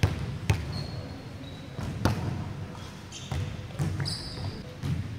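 A volleyball being hit and bouncing on a wooden gym court: a sharp smack every second or so, echoing in a large sports hall. Short high squeaks of sneakers on the floor come in twice.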